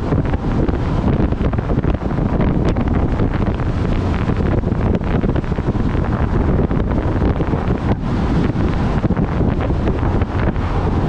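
Heavy wind buffeting the microphone of a camera on a vehicle travelling at highway speed, a steady loud rumble with road noise underneath.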